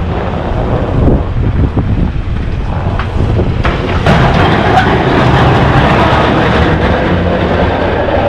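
Engine of a snow-plowing vehicle running steadily, with wind buffeting the microphone; a rushing noise grows louder about four seconds in.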